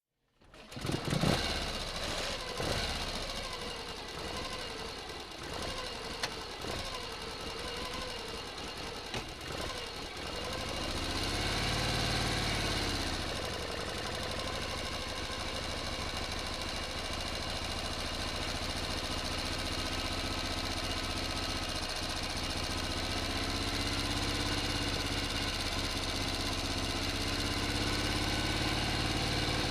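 Motor engine comes in suddenly and runs unevenly for several seconds. About twelve seconds in it revs up and back down, then settles into a steady idle.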